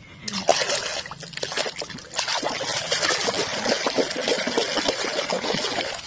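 A hand swishing and scrubbing toy trucks in a basin of muddy, soapy water: a steady run of small splashes, sloshing and dripping, beginning a moment in.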